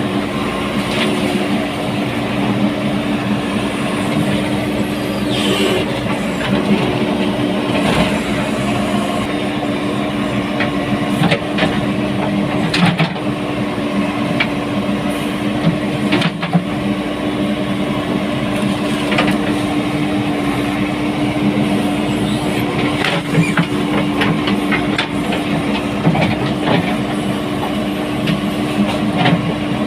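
JCB 3DX backhoe loader's diesel engine running steadily at a constant pitch while the machine works, with scattered sharp knocks and clanks throughout.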